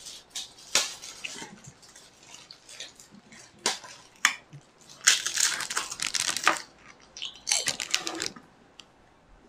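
Snack-eating noises: a crisp cracker being bitten and crunched and a plastic snack wrapper being crinkled, as scattered sharp crackles with a longer stretch of rustling crinkle about halfway through.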